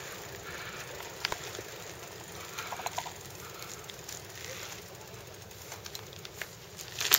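Faint, steady outdoor background noise with a few scattered light clicks and knocks.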